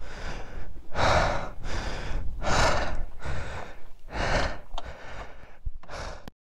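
A man panting hard close to the microphone, about one breath every 0.8 s, while pushing his motorcycle with the engine off. The sound cuts off abruptly near the end.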